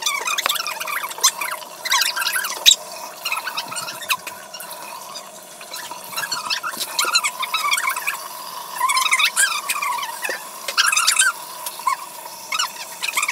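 High-pitched, squeaky girls' voices chattering and squealing in short bursts, too shrill to make out as words.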